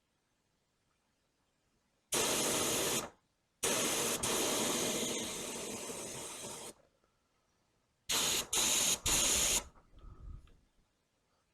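Small air-fed spray gun triggered in bursts of hiss while its spray fan is adjusted: one short burst, a longer one of about three seconds that slowly weakens, then three quick short bursts.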